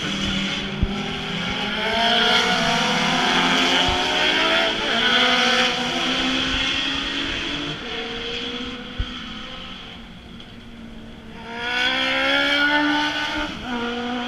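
Race car engines on a circuit, revving up and down through the gears as cars pass one after another. One passes loud in the first few seconds, the sound fades about ten seconds in, and another car goes by loud near the end.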